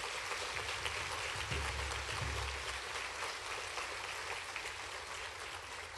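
Audience applauding, a dense steady patter of many hands clapping that slowly dies down toward the end.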